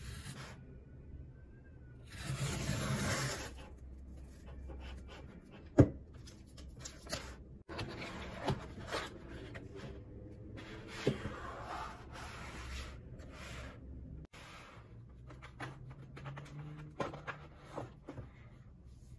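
Cardboard shipping box being opened by hand. About two seconds in there is a loud tearing rasp as the adhesive tear strip is pulled off, followed by cardboard flaps and packing rubbing and sliding, with several sharp taps and knocks; the loudest comes about six seconds in.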